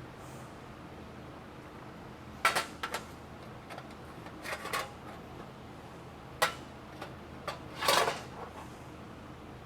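Model A Ford trunk latch being tried by hand: a series of short, sharp metal clicks and clacks, a second or two apart, the first about two and a half seconds in and the loudest near the end.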